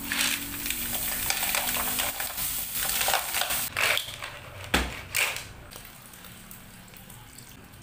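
Mussels, lemongrass and vegetables sizzling and being stirred in a hot nonstick wok, with a few sharp clatters of mussel shells about four to five seconds in as the pan is tossed. The sizzle then drops to a quieter steady hiss as coconut milk is poured in.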